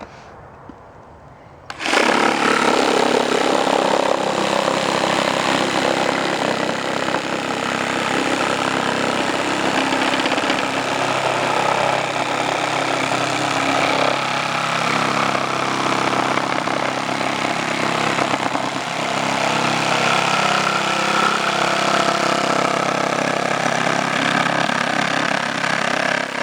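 Black & Decker Matrix 20V cordless power tool with a quick-connect attachment, starting about two seconds in and running continuously under load, then stopping abruptly near the end.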